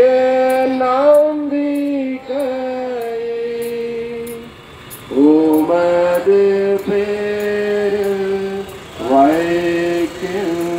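Voices singing a slow devotional hymn in long held notes: three phrases, each sliding up into a sustained note.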